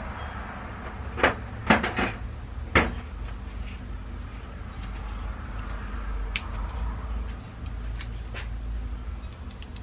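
Metal hand tools clinking as a socket is sought out and fitted: four sharp clinks in the first three seconds, then a few fainter ticks, over a steady low hum.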